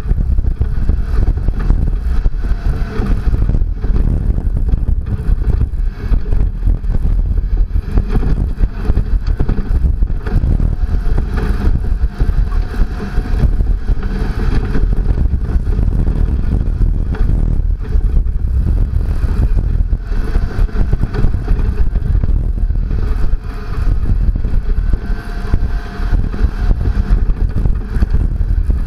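Second-generation Toyota Tacoma prerunner driven along a rough dirt rally track: engine running under load, with tyres and suspension clattering over the ruts and wind buffeting a hood-mounted microphone.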